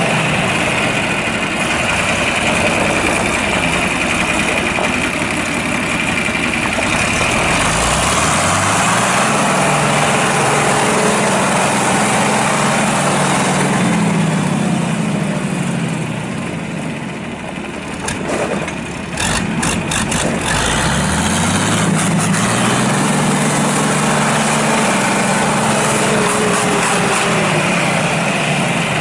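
John Deere 4020's six-cylinder diesel engine running, its pitch climbing about a quarter of the way in, sagging past the middle with a few sharp clicks, then climbing again.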